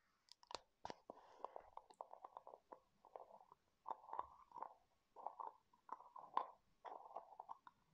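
Long fingernails tapping and scratching on a small round plastic jar. A few sharp taps open it, then short bursts of scratchy rubbing and clicking follow one after another.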